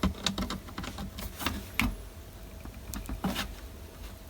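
Scattered light clicks and taps of a screwdriver working at small, partly stripped screws in a plastic hatch-button housing, over a faint steady hum.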